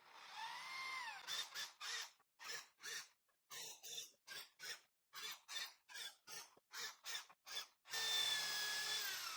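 Electric drill with a 3 mm bit and countersink boring into pine: a brief run whose pitch falls as it stops, then a rapid string of short bursts about two a second, then a longer run that winds down near the end.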